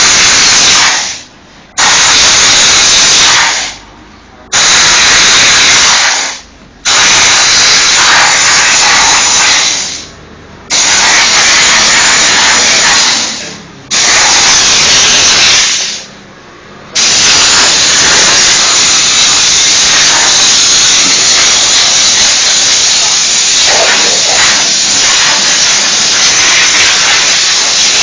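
Steam cleaner wand jetting pressurised steam in loud hissing bursts of two to three seconds, six times with short gaps as the trigger is released, then held on continuously for the last eleven seconds or so.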